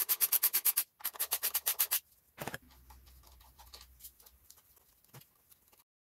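Hand ratchet clicking in two quick runs, about ten clicks a second, as E8 bolts on the EGR pipe are spun loose, followed by a single knock and a few faint ticks.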